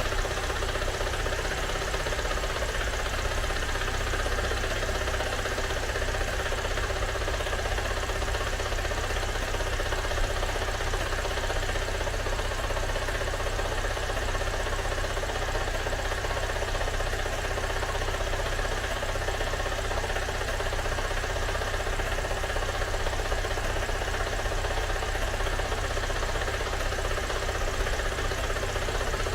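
Freshly rebuilt car engine of a Great Wall WEY idling steadily.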